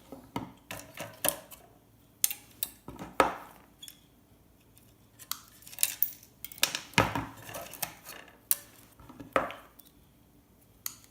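Hand tools working components and wires off a circuit board: irregular sharp metallic clicks and clacks, some ringing briefly, as parts are pried or snipped free and dropped.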